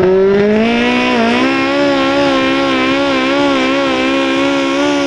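Modified garden tractor's engine running at high revs under full load while pulling a weight sled. Its pitch climbs during the first second, then holds high with a slight waver.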